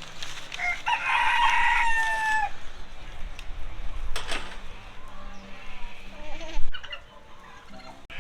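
A rooster crowing once, a loud call of about two seconds that starts about half a second in and ends in a falling note.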